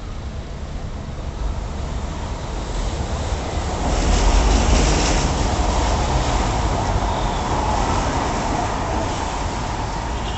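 Elevated LRT Line 1 train passing on the viaduct overhead: a rumble that builds about three seconds in, is loudest around four to five seconds, then slowly fades, over steady street traffic.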